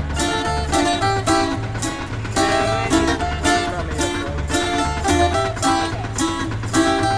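Background music played on a plucked, strummed string instrument like an acoustic guitar, with a steady, even beat.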